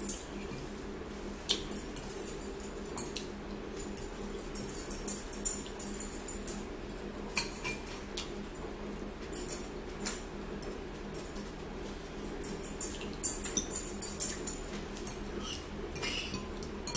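Eating sounds: metal forks clicking and scraping against ceramic bowls, with chewing and lip smacking close to the microphone, over a steady low room hum.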